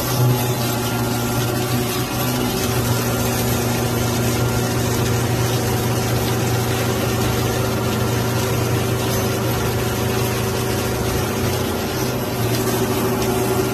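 Milling machine with a 160 mm diameter cutter at 1500 rpm taking a heavy 10 mm pass in mild steel: a steady hum of several tones under continuous cutting noise, dipping slightly near the end.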